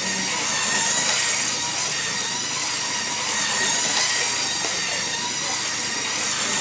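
LEGO 9-volt train motor whirring steadily as the BNSF locomotive runs around plastic track, its wheels rattling on the rails. It swells a little about a second in and again about four seconds in.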